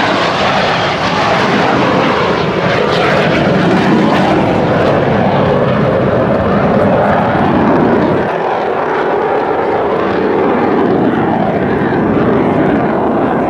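Jet engine noise from a US Navy Blue Angels F/A-18 Hornet, with its twin turbofans, flying overhead. The noise is loud and steady, and its low rumble thins about eight seconds in as the jet moves away.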